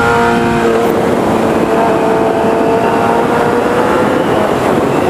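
Sport motorcycle's four-cylinder engine with an aftermarket 4-into-1 exhaust, heard while riding: the engine note holds and rises slowly for about four seconds, over steady wind rush.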